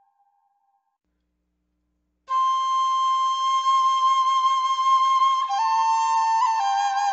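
Background music: after a short silence, long held flute-like notes begin suddenly about two seconds in, stepping to new pitches twice.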